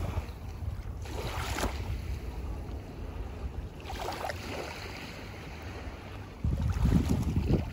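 Wind buffeting the microphone over small waves washing onto a sandy shore, with louder buffeting near the end.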